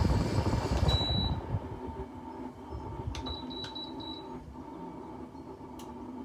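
Air conditioner running, then switched off with a beep from its control panel about a second in; its fan noise dies away. A few more short beeps and clicks follow around three to four seconds in, with one more click near the end.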